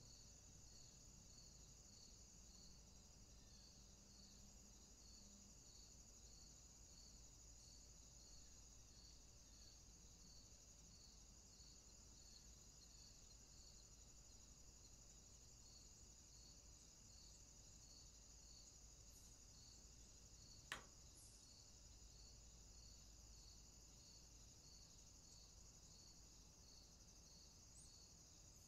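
Faint insects chirping in the grass: a steady high trill with a regular pulsed chirp under it, a little under two pulses a second. There is one sharp click about twenty-one seconds in.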